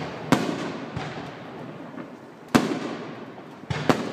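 Fireworks going off: four sharp bangs, one just after the start, one past halfway and a quick pair near the end.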